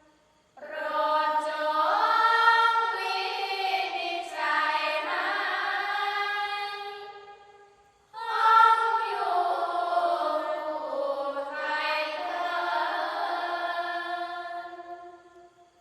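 Thai sarabhanya, a Buddhist devotional chant, sung by a group of voices in two long, slow melodic phrases; the second phrase fades out near the end.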